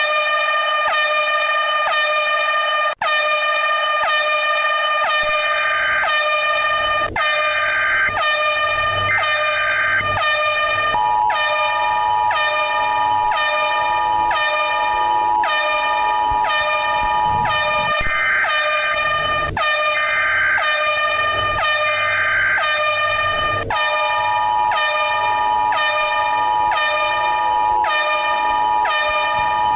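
Electronic emergency alert alarm: a loud, harsh horn-like tone pulsing about twice a second. A steady two-note tone joins it twice, for several seconds each time.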